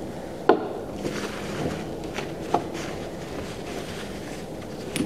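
A few light clicks and paper rustles as wet old coins are set down and handled on a paper towel: one sharp click about half a second in, a smaller tick midway and another click near the end, over a steady low background noise.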